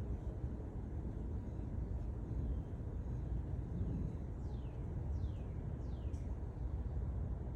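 Steady low outdoor rumble of storm ambience, with a bird giving a few short calls that each slide steeply downward, clustered in the second half.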